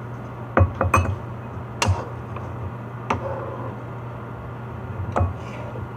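Cookware clinking and knocking a handful of times, a pot tapping against a bowl as ramen noodles are poured out, over a steady low hum.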